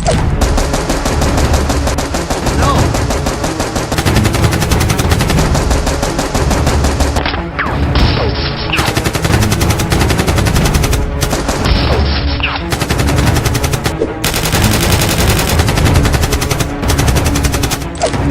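Rapid automatic gunfire in long, dense bursts, many shots a second, broken by a few short pauses.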